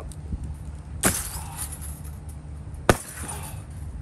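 Sledgehammer striking the wreckage of a dismantled sofa bed twice, about two seconds apart, each blow a sharp crash with a brief clatter after it.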